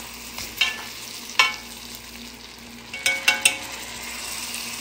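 Chicken wings sizzling as they are tossed in a pan of bubbling butter, olive oil and seasoning. Five ringing clinks against the pan cut through the sizzle, the loudest about a second and a half in and three in quick succession around three seconds in.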